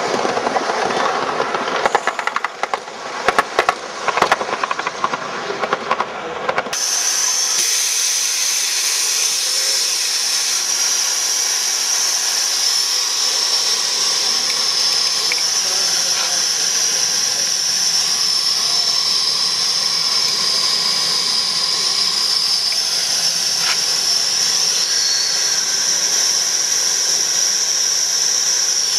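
A gauge 1 live-steam model train runs past, its wheels clicking rapidly over the track. Then the sound changes abruptly to a steady high-pitched hiss that carries on unbroken, with a faint click or two.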